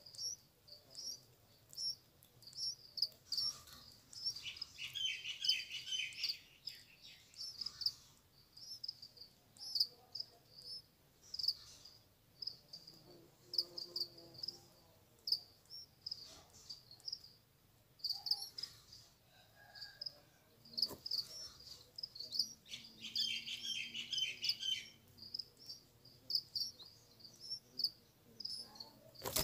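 Red-vented bulbul nestlings begging at the nest, two bursts of high, rapid chattering calls, over a steady series of short high chirps that runs throughout.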